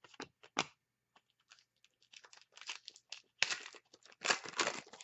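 A trading card pack wrapper being torn open and crinkled in the hands. A few light clicks come first, then rustling, then two louder rips about a second apart near the end.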